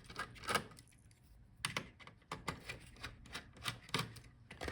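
Light, irregular clicks and taps of a small screwdriver working the hinge screws on a laptop's metal frame.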